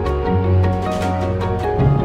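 Background music: held notes over a deep bass line that changes note about every second.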